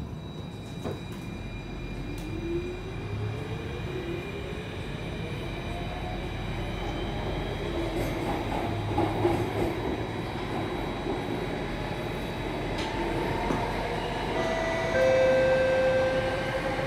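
Alstom C830 metro train heard from inside the carriage as it pulls away from a station: the traction motors' whine rises steadily in pitch as the train accelerates, over a low rumble of wheels on rail. A steadier tone joins near the end.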